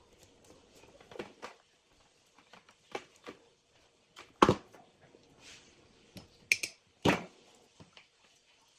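Plastic-sheathed network cable and hand tools being handled on a tabletop: scattered light rustles and clicks, with two sharper knocks about four and a half and seven seconds in.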